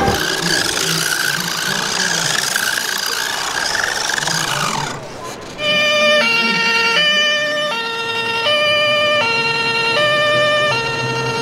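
A two-tone German fire-engine siren (Martinshorn) alternating between a high and a low note about every half second, most likely from an RC model fire truck's sound module. Before it, for about five seconds, there is a steady wash of noise with a faint wavering tone.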